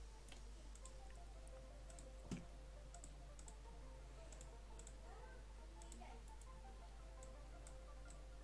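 Faint, scattered clicking of a computer mouse and keyboard, with one louder thump about two seconds in.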